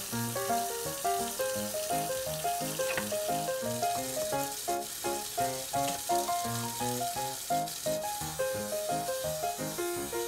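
Kitchen faucet running into a sink, a steady hiss of water, under background music with a tune of short notes.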